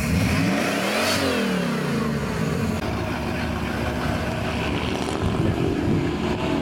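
Supercharged hot-rod engine of a Pontiac Firebird running. It is revved once about a second in, rising and falling in pitch, then settles back to a steady idle.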